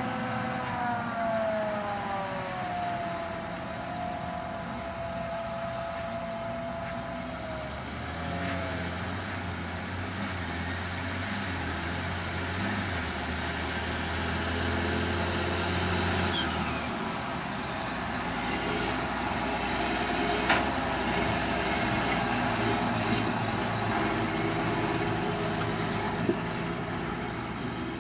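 Heavy farm machinery running: a forage harvester chopping maize and a Ford 8670 tractor's six-cylinder diesel pulling a silage trailer alongside. A falling whine in the first few seconds settles into a steady tone.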